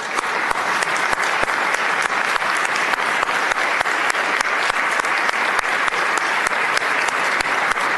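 Sustained applause from a chamber full of delegates giving a standing ovation, the many hand claps blending into a steady wash at an even level.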